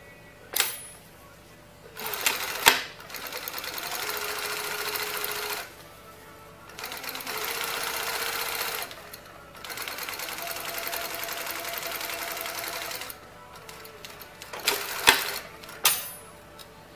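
Industrial off-arm zig-zag walking-foot sewing machine with an Efka DC motor stitching in three runs of a few seconds each, stopping between them. Sharp clacks come just before the first run and twice more near the end.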